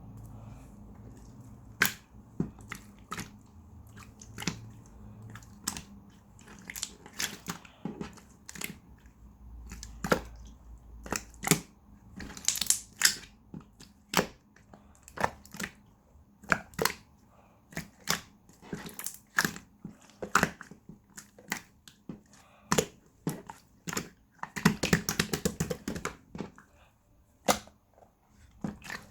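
Hands pressing, poking and stretching slime, giving sharp irregular pops and clicks as trapped air bursts, with a dense run of crackling about three-quarters of the way through.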